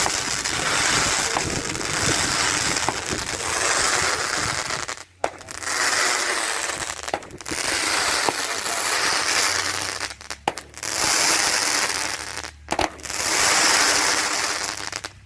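Fireworks going off in a dense, continuous stream of hissing noise with scattered small pops. It breaks off briefly three times and stops abruptly near the end.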